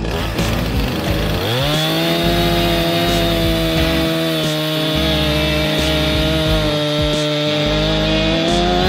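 Husqvarna Rancher 455 two-stroke chainsaw revving up about a second and a half in and held at full throttle, cutting apple tree wood. Its pitch sags slightly in the middle of the cut, then it eases off at the very end.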